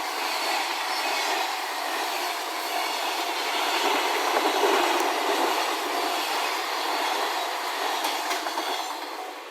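Container wagons of a freight train rolling past at speed, wheels clattering and clicking over the rail joints. A level-crossing alarm sounds underneath. The train noise eases off near the end as the last wagons go by.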